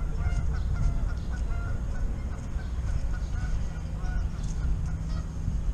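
A flock of geese honking over and over, many short calls following one another, over a steady low rumble.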